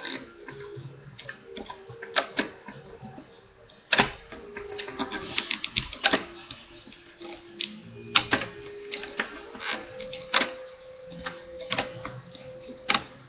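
Irregular clicks and taps of a hook and rubber loom bands being worked on a plastic bracelet loom, with a few sharper knocks among them.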